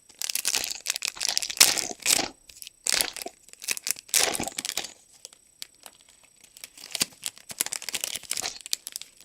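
A trading-card pack wrapper being torn open and crumpled: a run of loud, sharp rustling bursts over the first five seconds, then softer, scattered crinkling.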